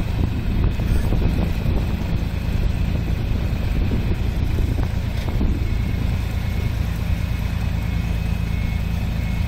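New Holland 8060 combine harvester's diesel engine running steadily, a loud low drone, with a few faint clicks.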